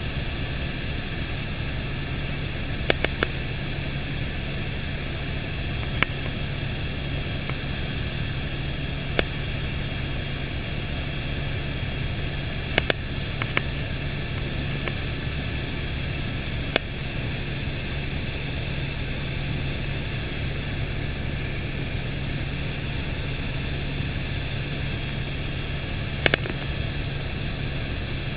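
Helicopter cabin noise in level flight: a steady low rotor and engine drone with a thin high whine over a hiss. A few sharp clicks break in now and then, about seven in all.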